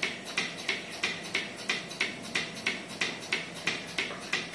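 Portable bucket milking machine running while milking a cow: the pulsator clicks in an even rhythm, about three times a second, over the steady hum of the vacuum pump.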